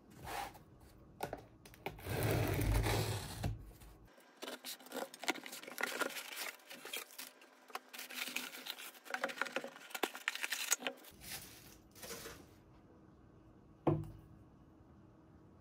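Wrapping rustling, crinkling and tearing in bursts, with many small crackles, then a single sharp knock near the end.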